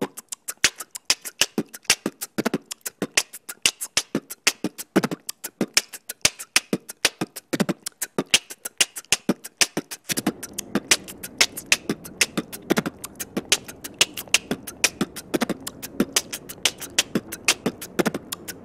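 Background music made only of a fast, even percussive beat of sharp clicks and drum hits, in a beatbox style and with no melody. About halfway through, faint steady street noise joins underneath.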